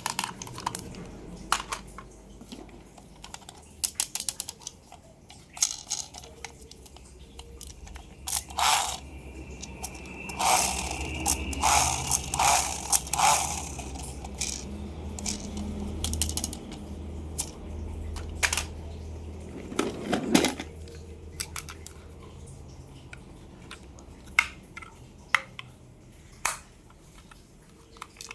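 Toys and their packaging being handled: scattered sharp clicks and taps, with a run of louder scraping and rustling about a third of the way in and another near two thirds.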